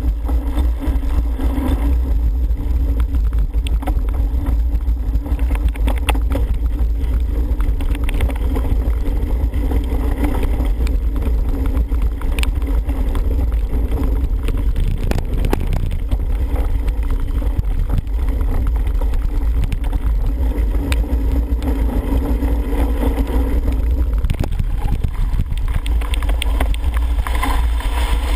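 Wind rushing over a helmet camera's microphone as a cyclocross bike is ridden at speed, with the rumble of the tyres over dirt and grass and scattered clicks and rattles from the bike.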